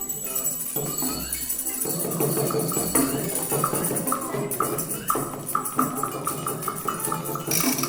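Hand percussion with tambourine-like jingling and a run of short tapping strokes that come faster toward the end.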